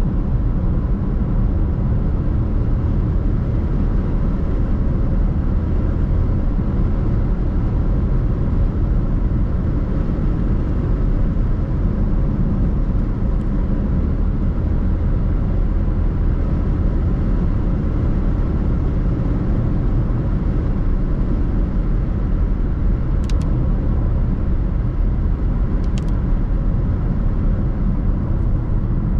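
Car driving: steady road and engine rumble, with two brief clicks near the end.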